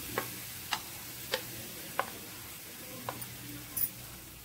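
Wooden spatula tapping and scraping on a ceramic plate, seven or so sharp knocks spaced about half a second apart, over a faint sizzle of grated raw mango frying in oil in the pan.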